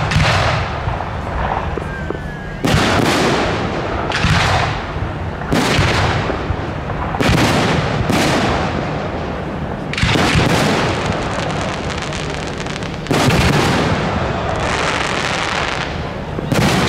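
Aerial fireworks bursting overhead, a loud bang every one to three seconds, about ten in all, each followed by a rolling echo that dies away before the next.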